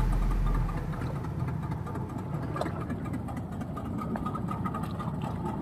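Boat engine idling with a steady low rumble. A loud deep boom that is already sounding dies away in the first second.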